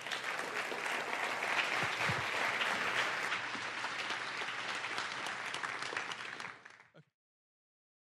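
Audience applauding, many hands clapping at once; it thins out and cuts off suddenly about seven seconds in.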